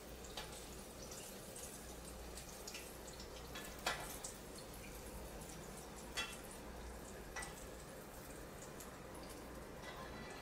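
Faint sizzle of hot frying oil, with a few light clicks and taps, the loudest about four seconds in.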